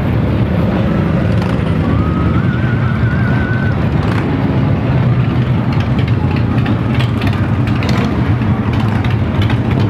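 Motorcycle engines running steadily at a busy street gathering, a continuous low rumble. A brief wavering high tone sounds over it from about two seconds in.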